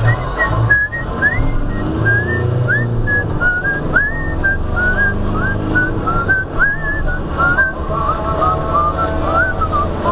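A tune whistled in short notes, some sliding up or down, about two or three a second, over the steady low rumble of the vehicle's engine.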